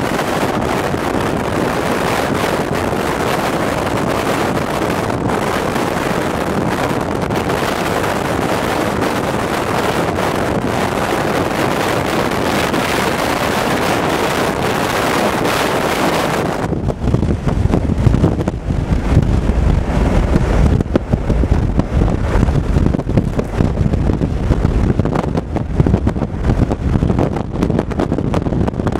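Wind and road noise from a car driving fast, a steady rushing hiss. About 17 seconds in the hiss cuts off abruptly and a gusty low rumble of wind buffeting the microphone takes over.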